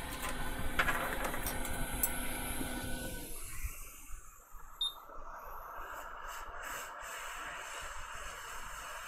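Hot air rework station blowing a steady hiss with a low hum while solder balls on a BGA chip are reflowed. The hot air cuts out about three seconds in, leaving a faint hiss and a few light clicks.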